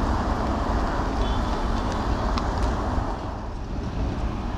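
Steady city road traffic: the continuous noise of cars passing along a busy street.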